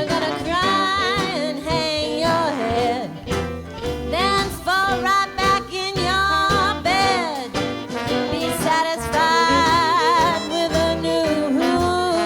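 Old-time jazz band music with a lead melody line over the band's steady accompaniment.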